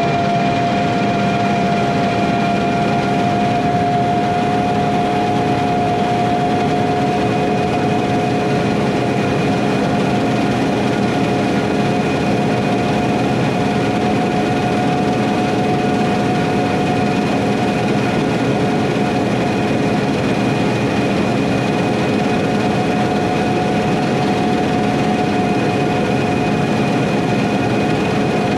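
Heavy farm harvest machinery running steadily at constant speed, an engine at full throttle with a steady, unchanging whine over it.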